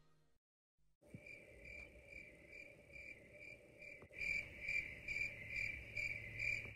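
Cricket chirping in a steady rhythm of about two chirps a second. It starts about a second in and grows louder about four seconds in.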